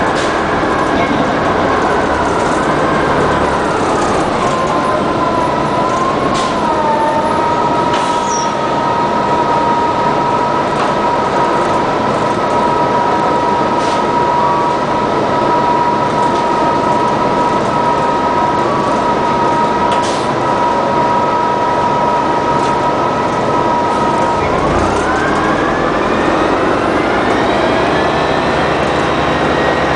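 Natural-gas transit bus drivetrain (Detroit Diesel Series 50G engine with Allison World B400R automatic transmission) running, with a high whine of several pitches. The whine falls over the first several seconds, holds steady for a long stretch, then climbs again about 25 seconds in.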